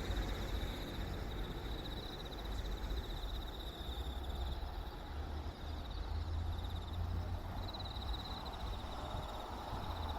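Insects singing: a steady high, finely pulsing trill that stops briefly about seven seconds in, over a low rumble.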